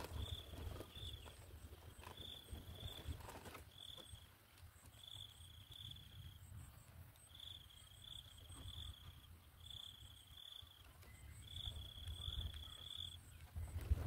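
Faint insect chirping, a cricket-like call of short pulses at one high pitch, repeated in clusters, over a low wind rumble.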